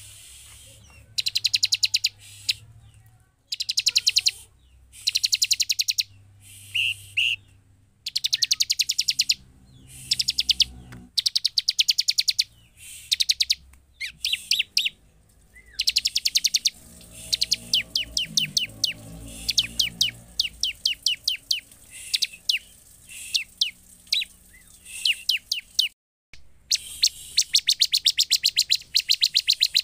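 Bar-winged prinia (ciblek) singing: rapid, dry, high-pitched trilled phrases about a second long, repeated over and over with short pauses between them.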